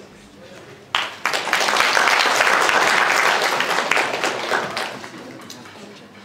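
Audience applauding, starting suddenly about a second in and fading away over the last second or two.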